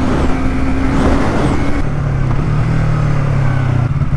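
Motorcycle engine running under way. Its pitch drops about two seconds in as the revs fall, then it settles into a lower, steady throb.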